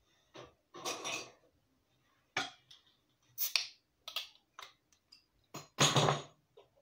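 Cutlery and metal clattering and clinking as a bottle opener is hunted out and then worked on a glass bottle's cap, in a series of short separate clinks with a louder clatter near the end.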